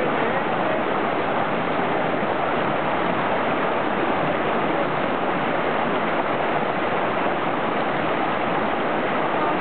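Rushing creek water spilling over a small cascade, a steady, even rush with no change.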